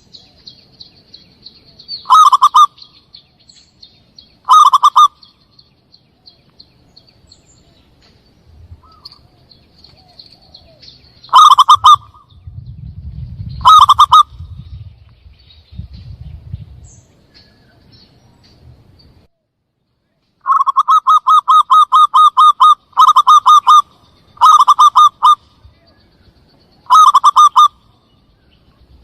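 Zebra dove (perkutut) lure call: loud, short phrases of rapid cooing notes, repeated about eight times with gaps, with one longer run near the two-thirds mark. Faint chirps of small birds sit behind it.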